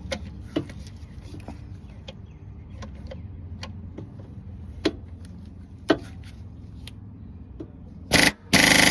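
Light clicks of socket and extension handling, then near the end a cordless quarter-inch-drive power ratchet buzzes in two short bursts as it works on a starter mounting bolt.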